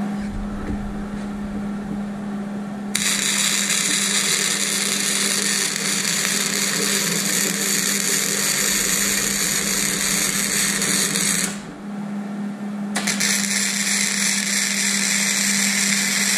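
Wire-feed welding arc, a steady loud crackle. It starts sharply about three seconds in, stops briefly near the twelve-second mark, then strikes again for a second bead. A steady low hum runs underneath.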